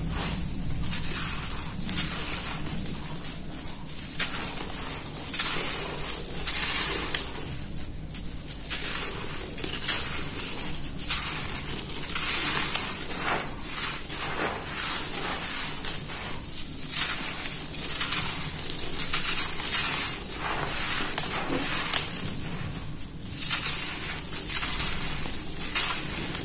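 Hands crushing and crumbling dry red dirt clods into loose, gritty soil: a continuous crunching and crackling with many irregular small crackles.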